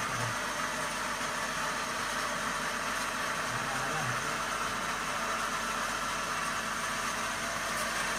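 Steady background hiss with a low hum, even in level and without any distinct event.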